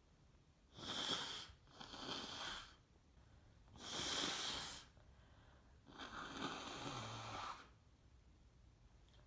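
A congested person breathing hard and wheezily through a blocked nose: four breaths of about a second each, the last one longer. The person is sick with the flu, heavily congested and with a very sore throat.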